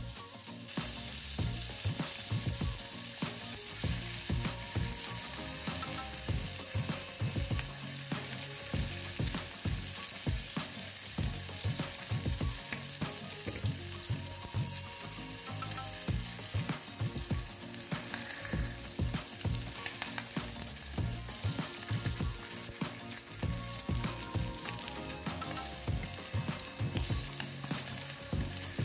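Salmon steak frying in hot oil in a nonstick pan: a steady sizzle with frequent crackling pops of spitting oil.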